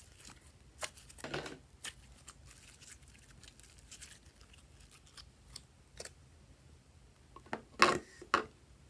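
Sticky clicks and crackles of slime being stretched and pulled by hand, with a louder cluster of sticky sounds near the end as the lump of yellow slime is pressed down onto glossy slime.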